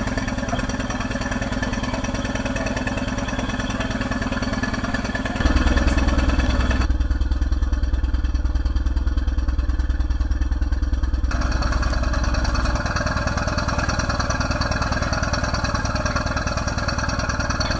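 Moored riverboat engines idling with a steady, rapid pulse. The sound gets louder and deeper about five and a half seconds in and shifts abruptly again a few times.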